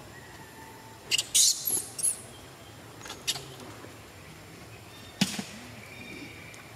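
Newborn macaque giving a quick cluster of high-pitched squeaks and squeals about a second in, while its mother handles it. A sharp click follows about five seconds in.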